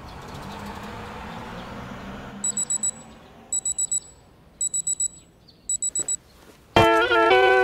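Alarm clock beeping in groups of four rapid high beeps, about once a second, four times over, then a click as it is switched off. Before the beeping there is a steady low background rumble, and near the end loud guitar music begins.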